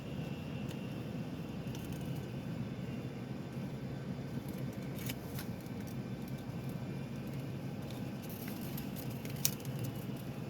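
Faint rustling of small plastic toy packaging being handled and opened, with a few scattered light clicks over a steady low background hum.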